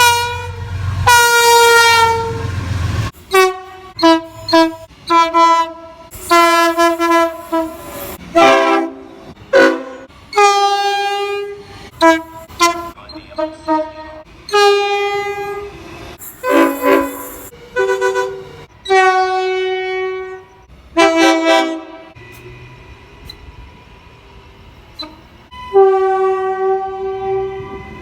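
Locomotive air horns sounding in a rapid series of short toots and longer blasts, each a chord of several tones. The chord changes from one horn to the next.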